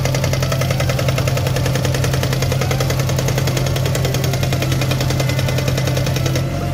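Hydraulic rock breaker on a JCB 3DX backhoe loader hammering rock in rapid, even blows over the steady running of the machine's diesel engine. The hammering stops near the end while the engine keeps running.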